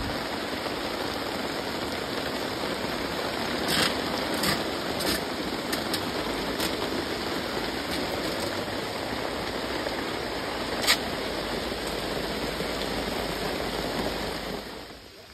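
Steady rain falling, a constant hiss with a few sharper drip impacts scattered through it, fading out near the end.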